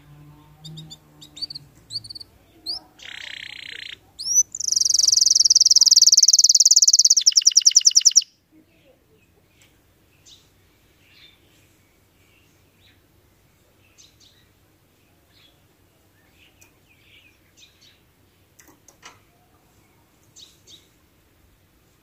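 Domestic canary singing: a few short chirps and a buzzy phrase, then a loud, high sustained trill that turns into a fast rattle and stops about eight seconds in, followed by faint scattered chirps.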